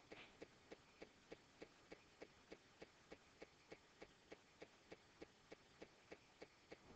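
Faint, evenly spaced ticking, about three ticks a second, over near silence.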